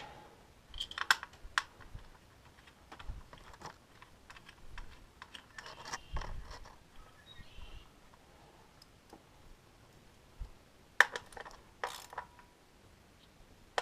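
Scattered light metallic clicks and taps of a 10mm wrench and the coil pack bolts as the bolts are threaded in and snugged hand tight, with a couple of sharper clicks near the end.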